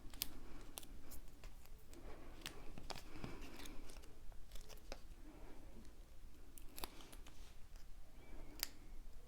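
Hands working with paper pieces and foam tape: scattered small sharp clicks and light paper-handling rustles, irregularly spaced.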